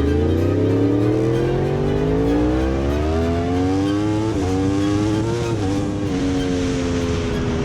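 2018 Yamaha YZF-R1's crossplane inline-four engine pulling up through the revs under acceleration. The pitch climbs for about four seconds, drops at two quick upshifts a little after halfway, then sinks slowly as the throttle eases off.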